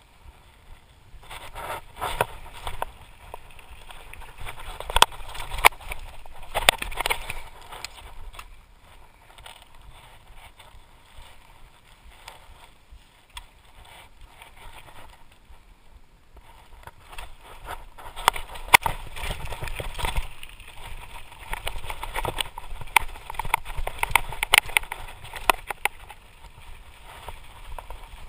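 Lapierre Spicy full-suspension mountain bike descending a rough gravel trail: tyres crunching over stones, with the bike clattering and knocking on the bumps. The clatter is busiest in two rough stretches, with a smoother, quieter run in the middle.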